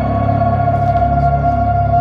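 Ambient music with long held tones over a deep bass, played through high-end hi-fi loudspeakers in a room.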